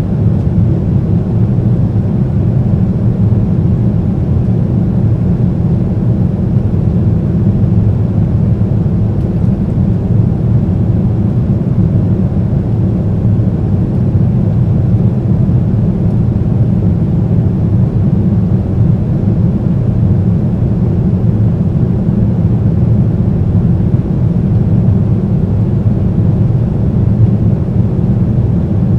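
Steady, deep drone of a Boeing 767-300's GE CF6 turbofan engines and airflow heard inside the passenger cabin, holding an even pitch and level throughout.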